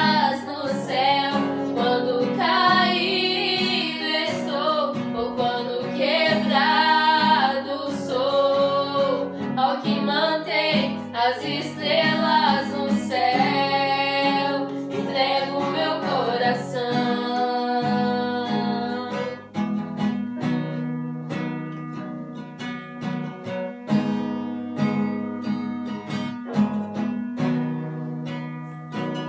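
Women singing a song over strummed acoustic guitar; about 18 seconds in the singing stops and the guitar carries on alone.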